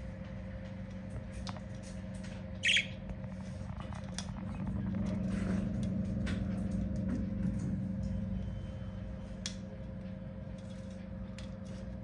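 Budgerigar giving one short squawk about three seconds in, over a steady low hum that swells for a few seconds mid-way. Faint scattered clicks come from its claws gripping the mesh window screen.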